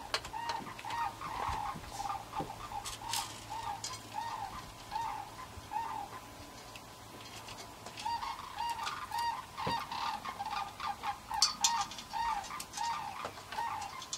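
Sandhill cranes calling: a long run of evenly repeated notes, about two a second, that stops around six seconds in and starts again about two seconds later. Scattered light clicks and knocks from metal table parts being handled run under the calls.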